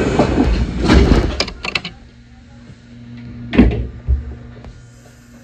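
Sliding passenger doors of a Kintetsu 1021 series electric train closing, with a loud thud about three and a half seconds in and a smaller knock just after. Clatter comes first, and the stopped train hums steadily underneath.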